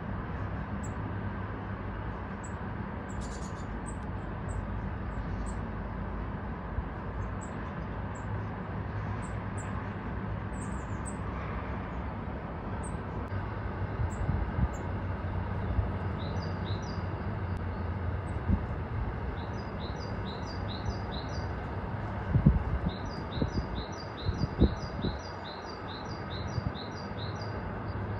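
Small garden songbirds, blue tits among them, calling: single short high chirps at first, then from about halfway runs of quickly repeated two-note phrases, over a steady low background rumble. A few dull thumps come about three-quarters of the way through and are the loudest sounds.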